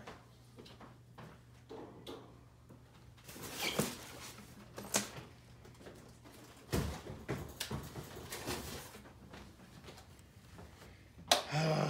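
Statue packaging being handled and opened: scattered rustles, scrapes and knocks of cardboard and foam. A brief voice sound comes near the end.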